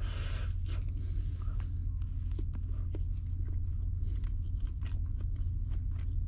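A person chewing and biting food with short crunching and smacking sounds, over a steady low rumble.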